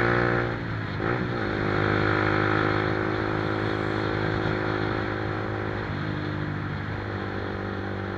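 Motorcycle engine running under way, its note dipping sharply and climbing back about a second in, then holding steady with another small change near the end.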